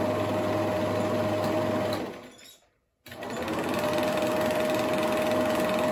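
8mm film projector mechanism running with a steady whine. About two seconds in it winds down and stops. After a short silence it starts again and the whine rises back up to speed as the projector is run the other way.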